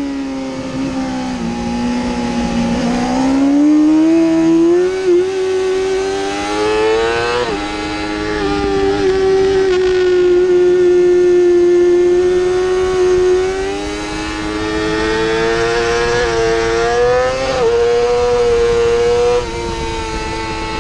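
2017 Yamaha YZF-R6's 600 cc inline-four engine at racing revs, heard from on the bike: the pitch dips and climbs several times as the throttle opens and closes, with sudden steps in pitch at gear shifts, over steady wind rush.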